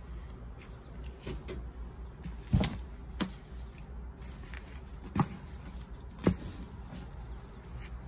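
Gloved hands sifting through loose potting soil in a plastic tub, with soft scraping and a few sharp knocks, the loudest about two and a half seconds in and two more a little after five and six seconds.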